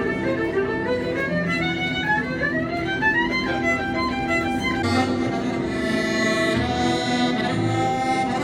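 Instrumental music with a quick melody whose notes climb in a rising run about two to three seconds in; the sound changes character about five seconds in.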